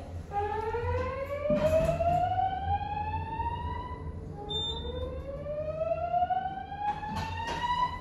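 Fire alarm slow-whoop evacuation tone from Gentex speaker strobes on a Notifier NFS2-3030 voice evacuation panel: two long rising sweeps, each about four seconds. It is the alert tone that alternates with the recorded evacuation message.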